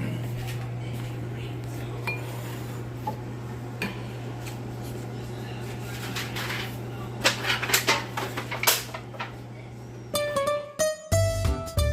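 Pans and utensils clinking and clattering in a kitchen over a steady low hum. About ten seconds in, music with plucked guitar notes cuts in.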